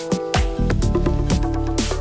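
Electronic background music with a steady beat and sustained synth notes.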